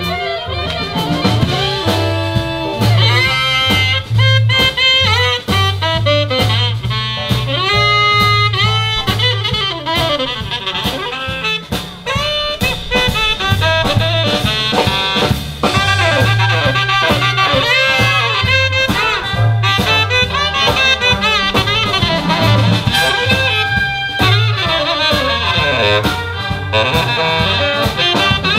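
Big jazz band playing a blues live, with a saxophone solo over bass and drum kit. A pitched, bending sax line rides over an evenly paced low bass line.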